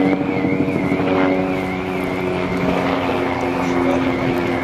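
A steady engine-like drone with a fainter high tone above it that wavers up and down regularly.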